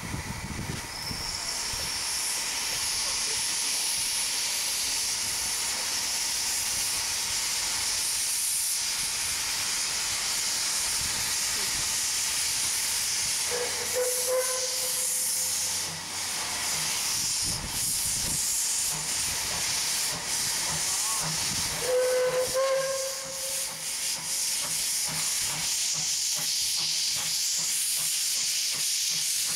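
Steam hissing from the open cylinder drain cocks of Puffing Billy's NA class narrow-gauge tank locomotive 8A as it starts away, clearing condensate from the cylinders. Two short whistle toots sound about 14 and 22 seconds in, and the beat of its exhaust comes through near the end as it gets moving.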